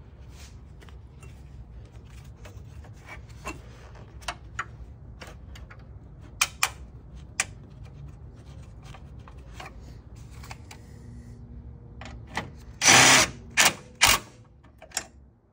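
Scattered, irregular clicks and clinks of a hand tool against metal as a 10 mm bolt is fastened in the engine bay, with a short, louder rasping burst about thirteen seconds in, followed by two sharp clicks.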